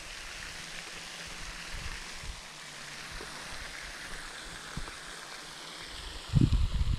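Steady hiss of water and wind. From about six seconds in, loud low rumbling buffets of wind on the microphone.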